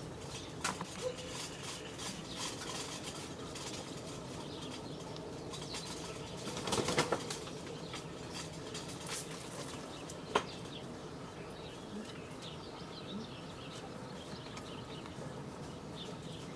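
Outdoor rural ambience: a steady faint hiss with distant birds calling. It is broken by a few short taps, a brief crackle about seven seconds in, and a single sharp tick about ten seconds in.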